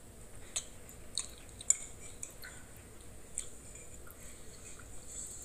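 A man eating scrambled eggs from a mug: a handful of scattered sharp clicks and clinks, the loudest a little under two seconds in.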